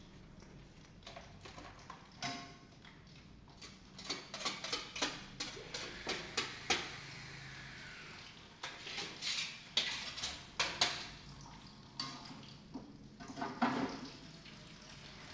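Irregular clinks and knocks of dishes and utensils being handled, coming in clusters with short pauses between them.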